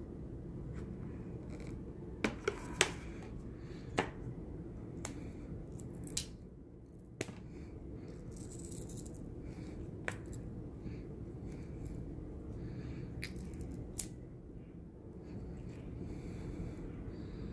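Rubber Disney MagicBand wristband being cut open and pried apart by hand: irregular sharp clicks and snaps, a few seconds apart, over a steady low hum.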